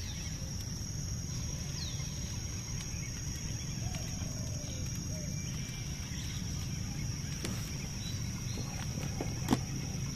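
Riverside ambience: a steady high-pitched insect drone with a few short bird calls over a low background rumble. A single sharp click comes near the end.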